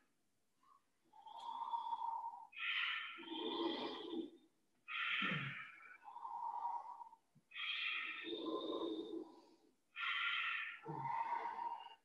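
Ujjayi breathing: slow, audible in- and out-breaths drawn through a narrowed throat, about four full breaths, while holding a wheel backbend.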